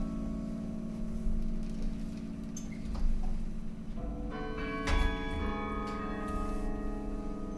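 Carillon bells of the National Carillon ringing in slow music: struck notes hum and die away, with new bells struck about four and five seconds in.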